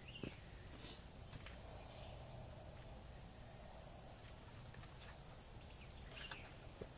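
Steady, high-pitched insect chorus in the woods, with a few faint clicks and knocks from handling things.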